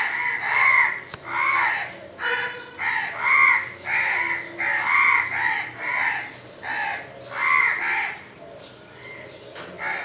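House crows cawing in a rapid run of harsh, repeated calls, about two a second with a brief lull near the end: crows mobbing a barn owl.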